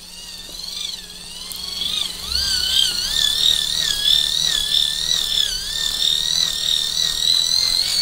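Small microwave turntable synchronous motor spun fast by a hand crank on its shaft, driven as a generator. It gives a high whine that rises over the first couple of seconds, then holds, wavering a little in pitch as the crank speed varies.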